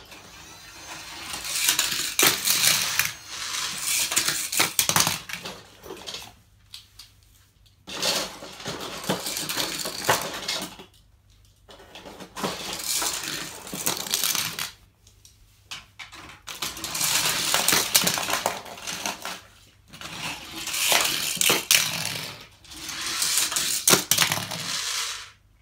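Toy cars rattling and clattering down a long plastic track, in about six runs of a few seconds each with short pauses between.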